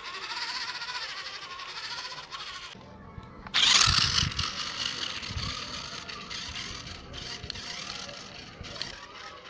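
Toy RC rock crawler's small electric motor and plastic gearbox whirring and rattling as its wheels grind over gritty concrete. The sound drops out about three seconds in, comes back loud about half a second later as the crawler sets off close by, and fades as it drives away.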